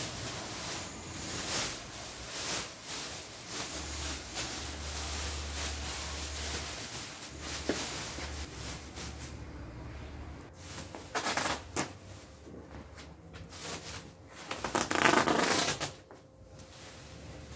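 Thin clear plastic bags crinkling and rustling as they are pulled down over a piece of wooden furniture and gathered together, with a louder burst of crinkling near the end.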